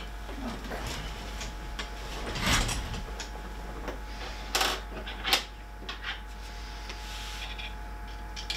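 Hands handling 3D printer parts during assembly: a scraping rustle about two and a half seconds in, then a few sharp clicks and knocks near the middle.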